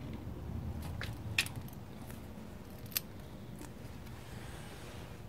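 Hand wire-crimping pliers snipping and clicking shut on a wire connector, a few sharp metallic clicks, the loudest about a second and a half in and again about three seconds in.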